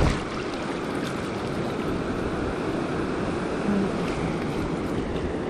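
Ocean surf wash swirling and rushing around the feet in the shallows, a steady rush of water.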